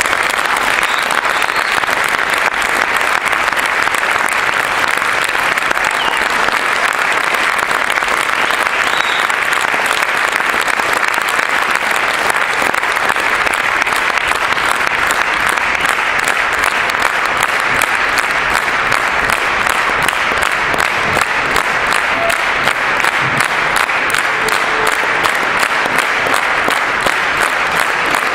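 Theatre audience applauding at length, the clapping falling into a steady beat in unison in the later part.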